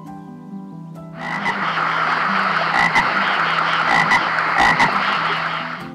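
A chorus of many frogs croaking densely over soft background music. It starts about a second in and stops just before the end.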